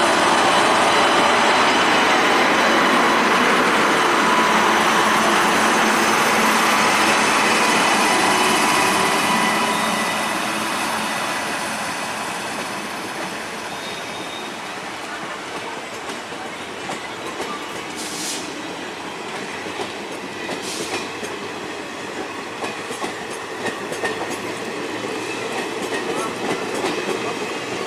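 Electric passenger train passing at speed: a loud rush of wheels on rails for about the first nine seconds, which then dies down as it moves away, leaving the clicking of wheels over rail joints. Two short high-pitched squeals come about two-thirds of the way through.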